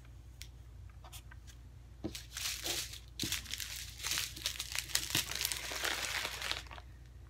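Plastic bags crinkling as hands dig through a zip-lock bag of small bagged diamond-painting drills. There are a few light clicks at first, then steady crinkling from about two seconds in until just before the end.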